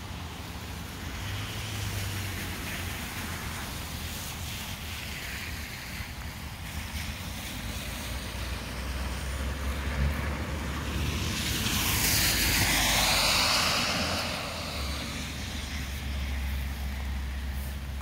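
A vehicle passing on a wet road: tyre hiss swells to a peak about two-thirds of the way through, then fades. Low wind rumble on the microphone runs underneath.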